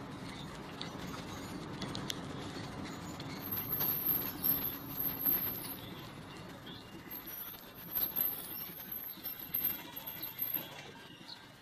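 Outdoor background noise picked up by a handheld camera on the move, with small handling clicks and rustles. A faint high-pitched whine comes and goes through the middle.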